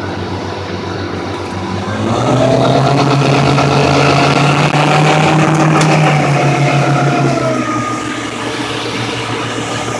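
Twin Suzuki outboard motors running under way. About two seconds in they throttle up, getting louder and higher in pitch, hold there, and ease back down near the end, over the rush of wake water.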